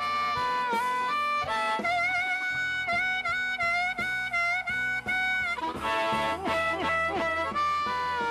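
Blues harmonica solo with a live band: long held notes with bent pitches, over bass and guitar accompaniment.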